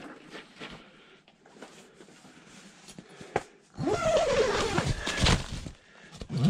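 Rustling and handling noise as gear is moved about inside an insulated ice-fishing shelter, with light clicks and knocks. About four seconds in comes a louder burst of rustling with a brief falling squeal-like tone, and a short rising squeak near the end.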